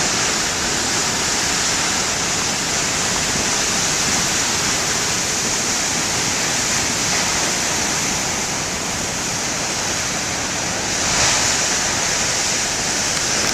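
Large waves breaking continuously on the shore: a steady, loud wash of surf that swells briefly about eleven seconds in.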